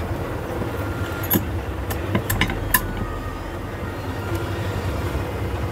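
Steady low background rumble, with a few light metallic clicks and clinks about one to three seconds in as a bench vice's jaws are wound open.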